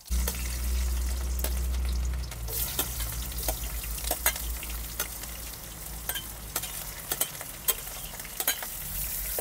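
Sliced onions frying in hot oil in a metal kadhai: a sudden loud sizzle, then steady frying with many sharp spitting pops and stirring. A low rumble runs under the first two seconds.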